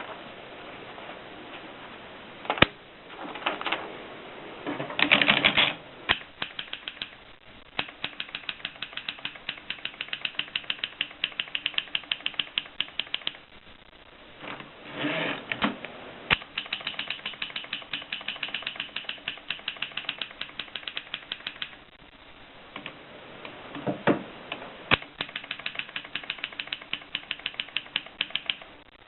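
1950s Express manual typewriter being typed on: runs of key strikes at about five a second, with short pauses and a few longer rattling bursts between runs.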